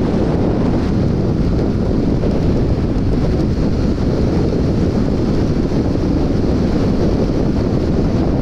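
Steady wind rush over the microphone of a motorcycle riding at highway speed. It is a loud, even low roar that covers any clear engine note.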